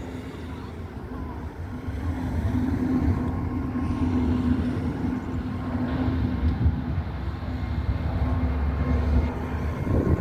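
Vueling jet airliner's engines on takeoff, a low rumble with a steady hum that grows louder over the first few seconds and then holds.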